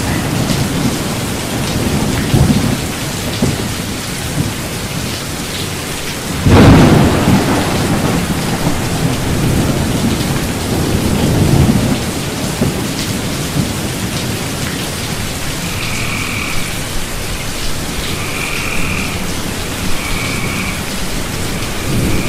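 Rain falling steadily, with a loud thunderclap about six and a half seconds in that rumbles on for several seconds. Near the end, short high calls repeat about every two seconds over the rain.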